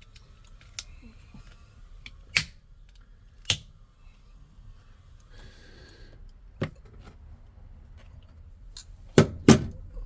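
Sharp plastic snaps and clicks as a sonically welded Ford Transit remote key case is forced open: single cracks a second or more apart, with the loudest pair near the end.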